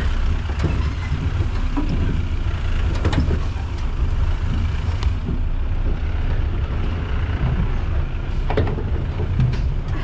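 A motor vehicle is driving over a rough, unpaved off-road track. There is a steady, loud low rumble from the engine and the ride, with a few sharp knocks as it jolts over the ground.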